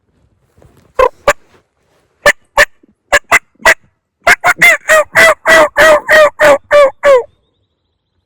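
Turkey yelps, loud and close: a few separate notes at first, then a steady run of about a dozen at roughly four a second that stops abruptly.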